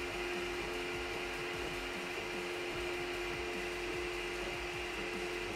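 Geeetech MeCreator 2 3D printer running a print: a steady whir with a couple of held tones, broken by many short stepper-motor chirps that slide up and down in pitch as the print head moves.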